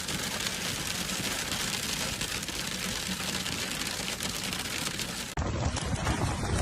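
Hailstones and rain pelting down, a dense patter of many small hits on hard surfaces. About five seconds in, the sound cuts to another recording of the storm, with a heavier, lower rush.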